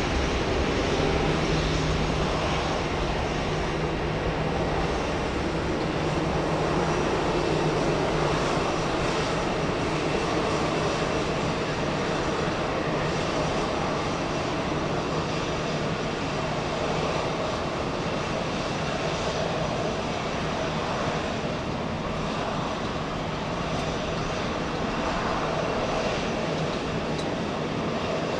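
Airbus A380-800's four Rolls-Royce Trent 970 jet engines running at taxi power: a continuous jet hum with a low steady tone, strongest in the first ten seconds and easing off slightly after that.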